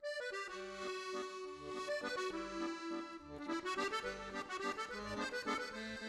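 Background music: an accordion playing a lively tune over a pulsing bass accompaniment.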